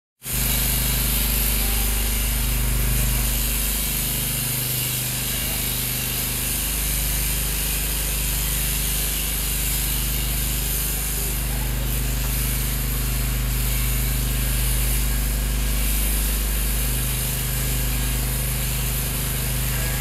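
Handheld electric sheep-shearing clippers running steadily as they cut through fleece, a continuous motor hum with a hiss over it.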